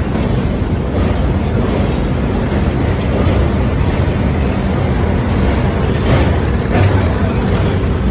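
Express train's coaches rolling across a steel truss rail bridge: a steady heavy rumble of wheels on the bridge track, with two sharp clanks about six and seven seconds in.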